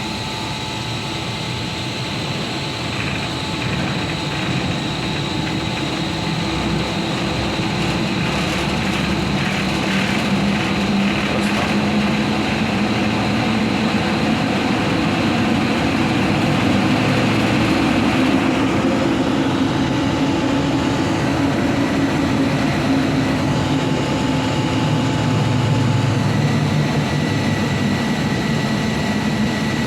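Motor-driven HVAC equipment running on a just-repaired ABB variable frequency drive, with a steady low hum and a high whine, growing gradually louder over the first half and then holding steady.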